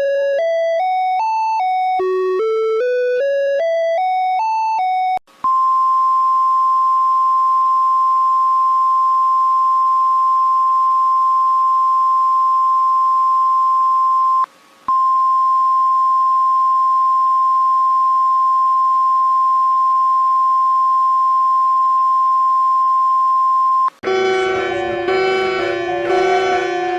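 Emergency alert tones: a rising run of stepped electronic beeps heard twice, then a long steady high beep with one short break partway through. Near the end it switches to a music passage.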